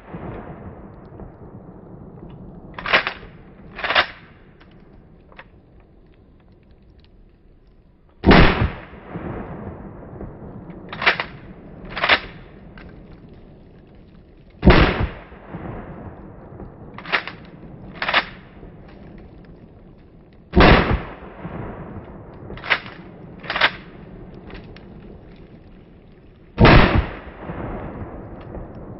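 Mossberg 590 Shockwave pump-action shotgun fired four times, about six seconds apart. Before each shot the pump is racked in two sharp clacks about a second apart, back and then forward.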